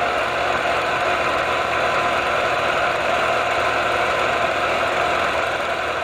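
Vintage film projector running: a steady mechanical whirring clatter of the film transport and reels.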